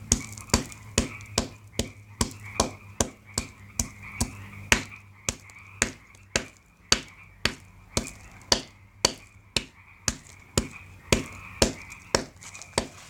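Hammer striking a piece of concrete brick over and over in an even rhythm, about two and a half blows a second. A frog chorus calls steadily behind the blows.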